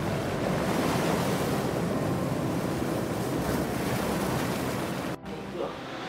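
Ocean surf breaking and washing over rocks, a steady rushing that cuts off suddenly about five seconds in, leaving only a quiet room tone.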